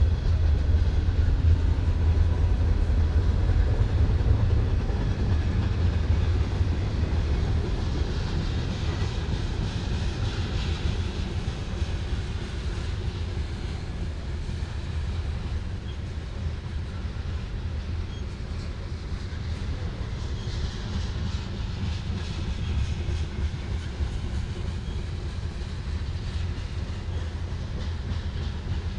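CSX freight train rolling past, a steady rumble that slowly grows quieter.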